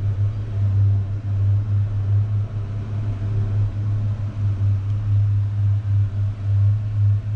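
Steady low drone inside an aerial ropeway cabin travelling along its cables, with a faint even hiss above it.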